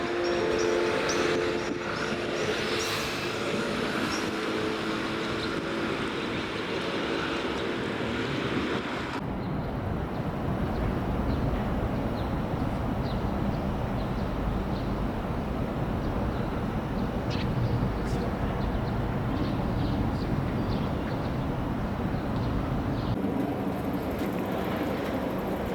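Outdoor city sound with a steady low rumble of passing vehicles. In the first seconds, a few held chime-like tones fade out over it. The sound changes abruptly about nine seconds in, after which the rumble carries on alone.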